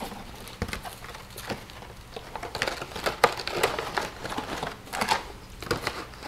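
Crinkling and rustling of a Mylar food-storage bag being handled, with scattered light clicks and taps.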